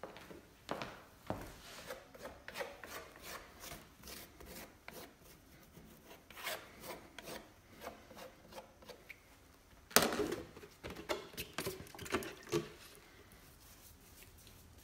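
A hand scraper scraping crusted growth and grime off the weathered wood of an old bench seat, in many short, irregular strokes. The strokes are loudest from about ten seconds in.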